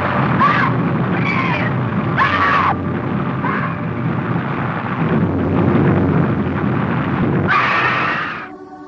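A woman screaming, with four short piercing cries in the first few seconds and a longer scream near the end, over a steady rush of storm rain and wind. The storm noise fades out just at the close.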